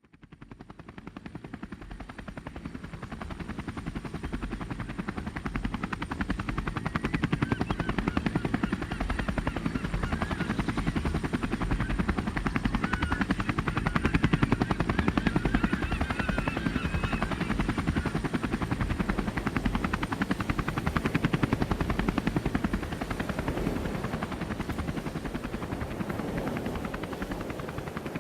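DJI Inspire 1 quadcopter drone's propellers running in flight: a fast, even chopping with a thin steady high whine, fading in over the first few seconds.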